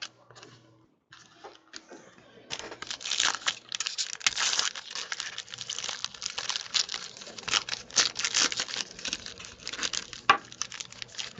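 Foil wrapper of a 2015 Panini Clear Vision football card pack being torn open and crinkled by hand. After a few faint clicks, a dense crackling starts about two and a half seconds in.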